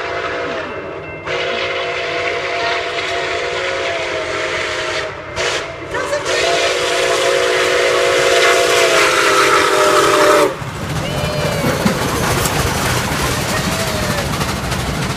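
Nickel Plate Road 765, a 2-8-4 Berkshire steam locomotive, sounding its multi-chime steam whistle in long blasts with a brief one between, the pattern of a grade-crossing signal. From about ten seconds in the whistle stops and the locomotive and train rumble past close by.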